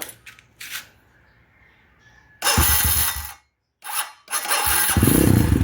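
Kawasaki KLX150's electric starter cranking in a loud burst, cranking again briefly, then the single-cylinder engine catches about four and a half seconds in and idles with a fast, even pulse through a fat-canister imitation Norifumi slip-on exhaust.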